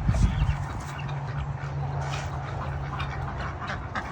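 Ducks quacking in short repeated calls, over a steady low hum, with a low thud right at the start.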